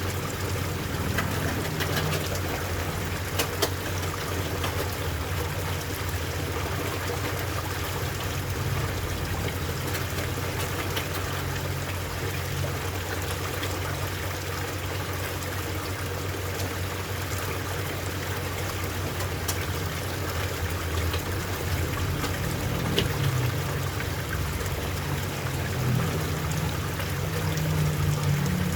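Water trickling and pouring steadily into a koi pond, with a steady low hum underneath and a few faint splashes or clicks.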